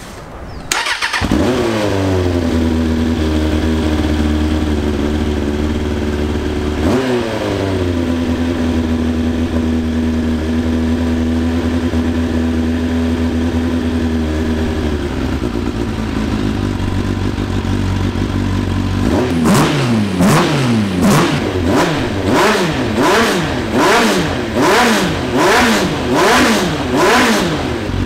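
Suzuki GSX600F Katana's inline-four engine firing up on the starter about a second in and settling from a fast idle to a steady idle, its first start after restoration. It is revved once a few seconds later. Near the end the throttle is blipped about a dozen times in quick succession, each rev rising and falling.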